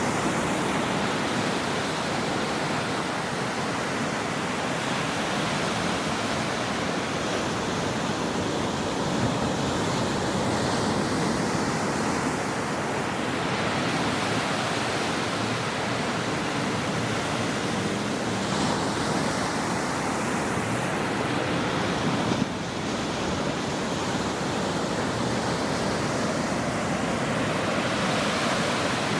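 Ocean surf washing onto a shore: a continuous rush of breaking waves that swells and eases roughly every eight seconds.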